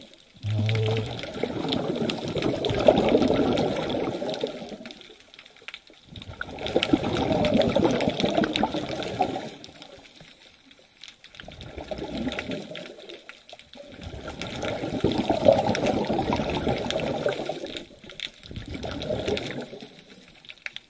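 Scuba regulator exhaust bubbles heard underwater: about five long bursts of bubbling, each a few seconds, with short quieter gaps between as the diver breathes in. A brief low hum sounds about half a second in.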